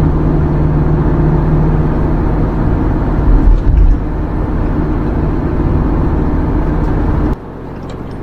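Minibus engine and road noise heard from inside the cab while driving at a steady pace, a steady hum with a noisy rumble. A little over seven seconds in, the sound drops suddenly to a quieter hum.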